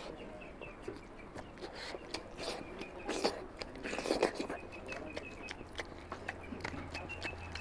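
Close-up eating sounds: fingers mixing rice and oily mutton fat curry on a steel plate, then chewing a handful of it, with many small clicks and the loudest bites about three to four seconds in.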